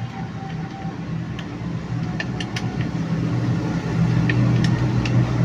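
Vehicle engine idling steadily with a low hum, with a few short, sharp metallic clicks in the second half.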